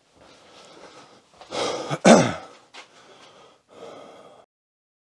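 A man's breathy vocal sounds, the loudest a short breathy burst falling in pitch about two seconds in, among faint rustling; the sound stops before the end.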